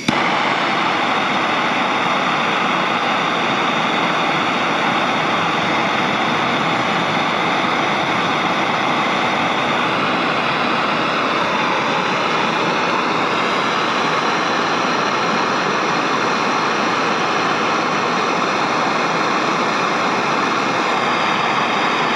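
Propane torch burning steadily, a loud even hissing roar of flame that starts suddenly and holds a constant level, played directly onto a heat-wrap sleeve in a burn test.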